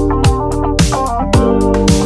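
Background music: a steady beat of deep kick drums that drop in pitch about twice a second, with sustained chords over it.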